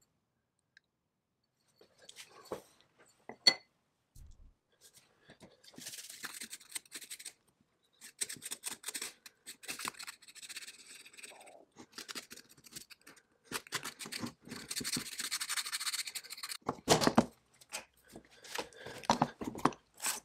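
Small parts being scrubbed and scraped by hand in spells of a few seconds, with scattered clicks and knocks as pieces are handled. Sharp knocks about three and a half seconds in and near the end are the loudest.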